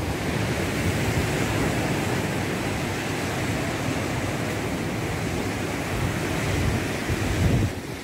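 Sea surf breaking and washing up a pebble beach, a steady rushing wash, with wind rumbling on the microphone, stronger near the end.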